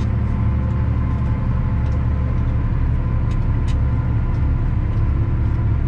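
Valtra tractor's diesel engine running steadily, heard from inside the cab while it hauls a loaded silage trailer: an even low drone with a few faint ticks.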